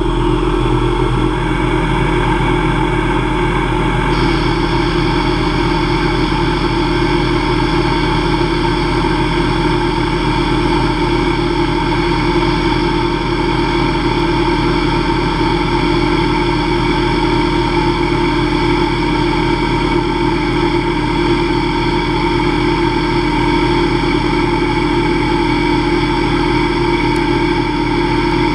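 Hobby CNC lathe spindle and drive running steadily at 2500 RPM while a diamond insert takes a light 0.001-inch turning cut on an aluminum bar: a steady mechanical hum made of several steady tones. A higher tone joins about four seconds in.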